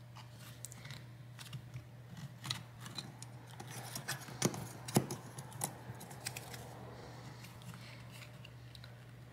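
Small clicks and scrapes of plastic opening picks being worked into the edge of an iPad Air 2's glued screen as it is pried up, scattered through, the two loudest about four and a half and five seconds in, over a faint steady hum.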